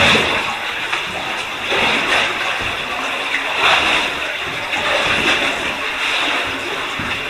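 Steady rush of a cave stream, with brief splashes and scrapes every second or so as a caver in an oversuit steps through water and over wet rock.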